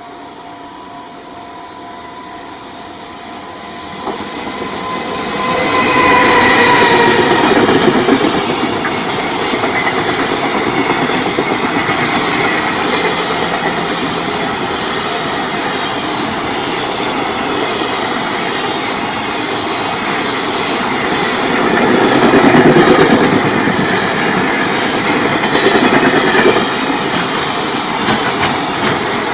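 Freight train approaching and passing close by, its wheels clattering over the rail joints; it builds up from about four seconds in and stays loud as the wagons roll past.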